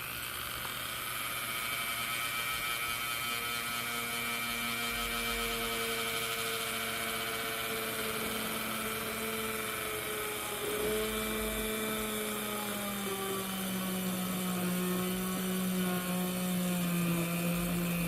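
Small electric motor of a handheld power tool running steadily, its pitch stepping down twice as it slows under load.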